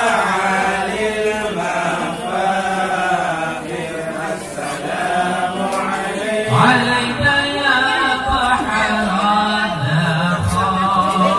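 A group of men chanting a devotional song in unison, in hadrah style, with no audible drumming. A new, slightly louder phrase begins about two-thirds of the way through.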